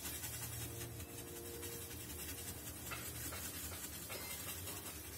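Paintbrush scrubbing and stirring thick paint on a styrofoam palette: a steady run of quick, dry scratching strokes as the colour is mixed.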